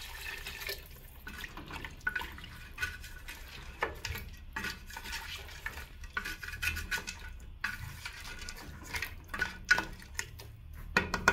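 Water pouring briefly into a pressure cooker of curried mutton. A wooden spoon then stirs the wet meat, knocking and scraping irregularly against the metal pot.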